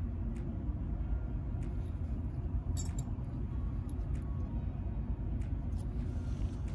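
Light metallic clinks of steel bolts, nuts and washers being handled, with a brighter cluster of clinks about three seconds in, over a steady low rumble of background noise.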